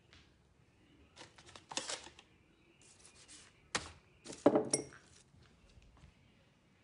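Light metallic clinks and rattles of small objects being picked up off a wooden table, in a few short bursts; the loudest, about four and a half seconds in, is a sharp jingle with a brief ring.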